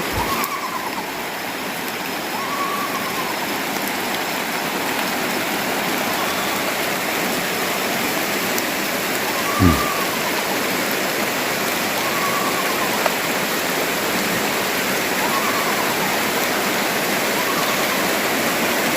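Steady rain hiss. Over it, a faint short rising-and-falling call repeats every two seconds or so, which the ghost-hunter hears as a woman faintly laughing. One brief falling sweep comes about ten seconds in.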